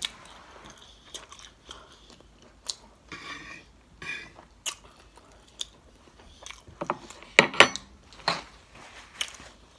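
Close-up chewing and mouth sounds of someone eating saucy fried orange shrimp, with scattered sharp clicks and smacks; the loudest cluster comes about seven to eight seconds in.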